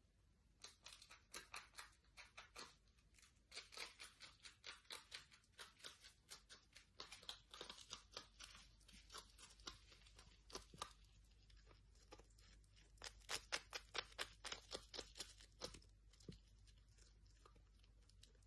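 Marmot chewing crunchy food held in its paws: a long run of small crisp crunches, a few a second, growing louder for a while near the end before they die away.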